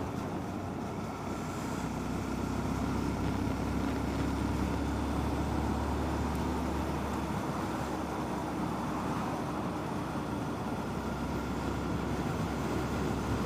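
Honda Monkey's small single-cylinder four-stroke engine running steadily while riding along, under an even rush of wind and road noise.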